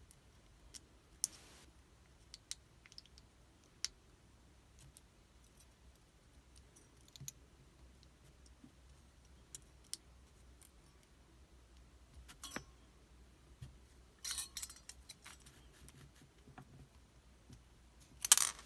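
Scattered light metallic clicks and taps from a pin-tumbler challenge lock being worked with its key and a shim, with a short cluster of clicks about three-quarters through and a louder brief clatter near the end.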